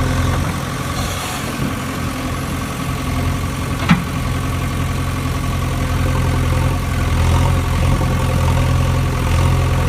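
Engine idling steadily with an even hum, with one sharp click about four seconds in.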